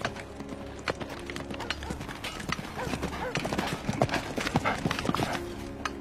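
A horse's hooves clip-clopping on sandy dirt as a rider approaches. The hoofbeats are thickest and loudest from about two seconds in until shortly before the end.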